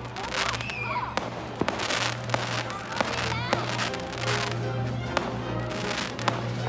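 Fireworks going off: irregular sharp bangs among hissing, crackling bursts, with music playing underneath.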